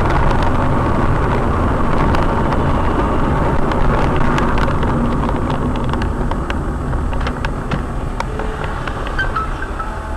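Steady car driving noise, engine and road rumble as picked up by a dashcam, with scattered light clicks, easing slightly near the end.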